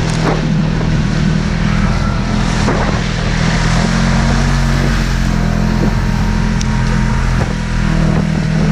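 Polaris RZR XP 1000's engine heard from on board, running steadily at low trail speed, with tyre and trail noise and a few short knocks as the machine works over rough snowy ground.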